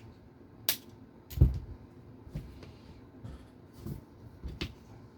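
Small RC car parts being handled and fitted by hand: a sharp click under a second in, a heavier low knock about a second and a half in, then several lighter taps and clicks.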